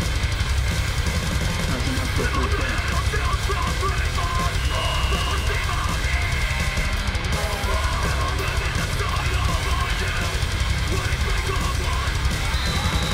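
Loud heavy metal backing music with a fast drum-kit beat and distorted guitar.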